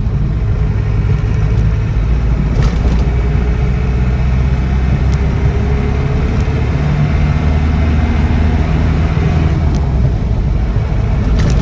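Land Rover Defender 90 300Tdi's 2.5-litre four-cylinder turbodiesel engine running steadily while the pickup drives along the road, heard from inside the cab with road noise. The cab is fairly rattle-free.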